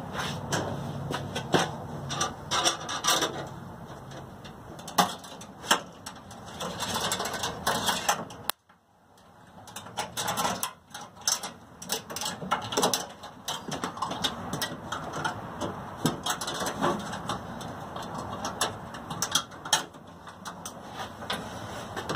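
Stiff coat-hanger wire scraping, tapping and rattling against the inside of a pickup tailgate as it is fed through the panel's openings to pull wiring, with irregular clicks. The sound cuts out suddenly for about a second a third of the way through, then the scraping and clicking resume.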